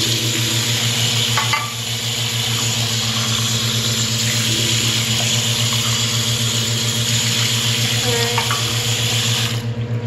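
Bathroom-sink tap running in a steady stream, splashing into the basin and over a clear plastic bird water dish being rinsed under it. The water cuts off suddenly near the end as the tap is turned off. A steady low hum runs underneath.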